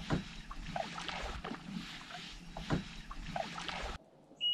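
Water lapping against a small boat's hull in soft slaps about every second and a half, over a low steady hum. It cuts off about four seconds in, and a high electronic beep starts right at the end.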